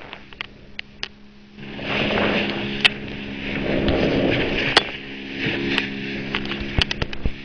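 A boat's engine runs steadily under rushing, splashing bow water, which swells louder from about two seconds in. Scattered sharp clicks come through the water noise.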